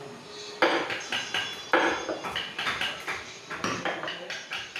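Hand carving chisels being struck with mallets and tapped into wood by several carvers at once: irregular sharp knocks with a slight metallic ring, several a second, the loudest a little over half a second in and just under two seconds in.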